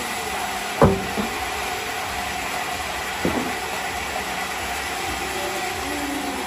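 A heavy squared teak plank being shoved by hand, with two heavy wooden knocks as it bumps onto the timber under it. The louder knock comes about a second in and a smaller one just past three seconds. Under it runs a steady machine hum.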